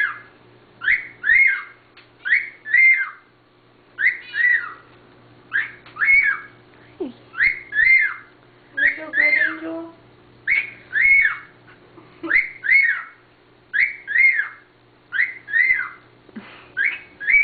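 Pearl cockatiel singing: short, arched whistled notes, mostly in pairs, with a new pair about every second and a half.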